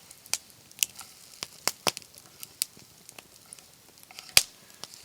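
Irregular sharp clicks and taps of a utensil against camp cookware while powdered egg mix is stirred.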